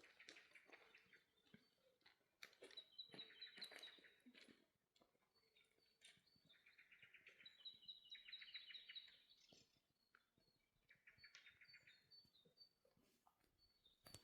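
Faint songbird song: short, rapid trilled phrases repeated every few seconds, with a few faint clicks between them.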